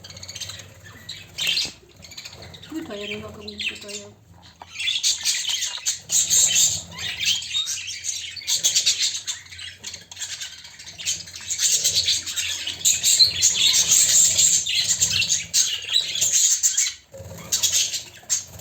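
Budgerigar chicks squawking: a harsh, raspy, near-continuous chorus that starts about four seconds in and runs for some twelve seconds before breaking off, after a few scattered clicks.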